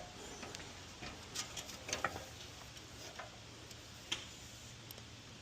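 Faint, irregular light clicks and taps of a metal putty knife working Bondo filler against wood siding, spaced unevenly, with a slightly louder tap about four seconds in.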